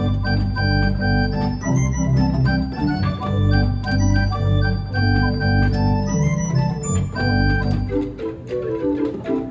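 Rieger pipe organ of 11 ranks playing full sustained chords over a deep pedal bass. About eight seconds in, the bass drops away and quicker, higher notes follow.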